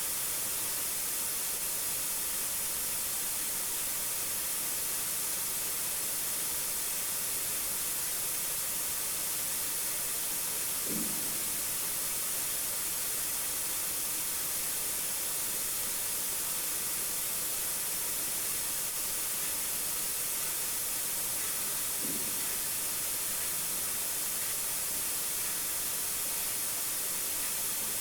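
Steady hiss, strongest in the high end, with two short, faint low sounds, one about eleven seconds in and another about twenty-two seconds in.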